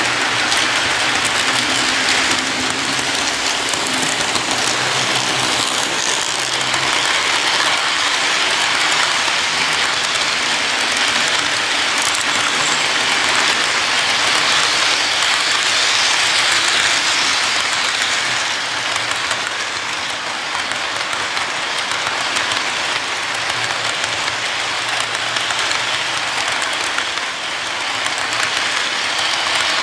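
Model freight train running past close by. Its wheels give a steady rolling hiss on the rails, with clicking over the track joints. The train is led by two ScaleTrains GE Tier 4 GEVO model locomotives.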